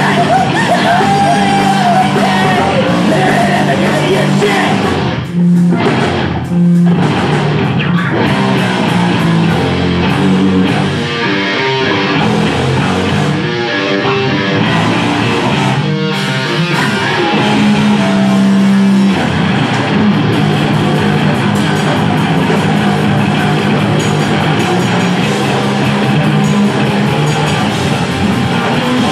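Rock band playing live, with electric guitars, bass and drum kit and a singer's voice over them. The band cuts out for two short breaks about five and six and a half seconds in, then carries on.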